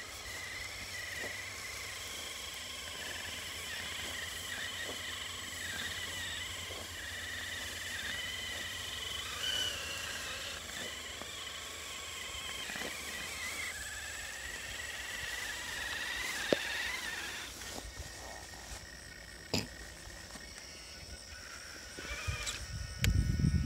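Traxxas TRX-4 RC crawler's Axe R3 brushless motor and drivetrain whining, the pitch wavering up and down with the throttle, stopping about 17 seconds in. A few sharp knocks follow, then a burst of low rumble near the end.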